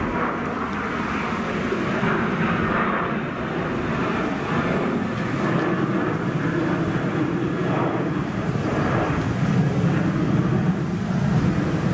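Boeing 737-800 climbing out after takeoff: the steady noise of its two CFM56-7B turbofan engines.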